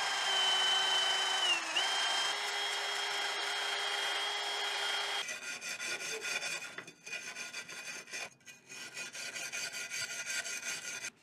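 Milwaukee Fuel cordless drill running steadily for about five seconds, its pitch dipping briefly under load near two seconds in, then stopping suddenly. After that a hand brush scrubs the steel engine inspection plate in the vise in short strokes with brief pauses, cleaning old gasket material off the sealing surface.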